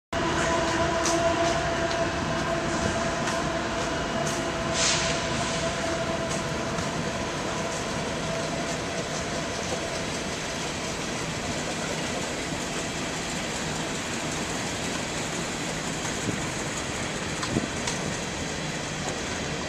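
Empty coal train rolling past with a steady noise of wheels on rail and a few clicks early on. A held pitched tone in the first half fades out about halfway through.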